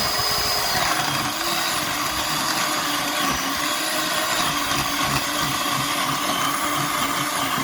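Worx 14-inch electric chainsaw running steadily with an even motor whine.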